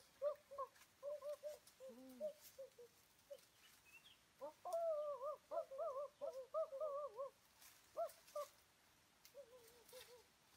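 Honeybees buzzing as they fly close around the microphone, stirred up by smoke at their nest. The pitch of each bee slides up and down as it passes, busiest around the middle.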